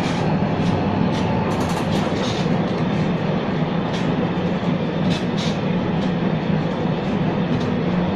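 Museum tram M 24 running along the street, heard from inside its wooden passenger saloon: a steady low rumble and hum from the moving car, with scattered short clicks and rattles.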